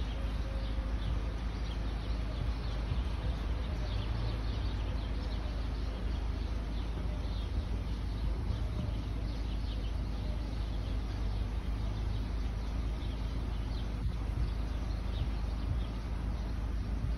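Birds chirping in short, irregular calls over a steady low rumble.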